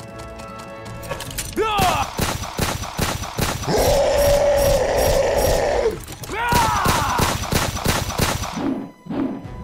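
Sound effects of rapid gunfire in a battle, running throughout. About four seconds in, a long, steady monster roar lasts some two seconds. Swooping whistles come about two seconds in and again after six seconds.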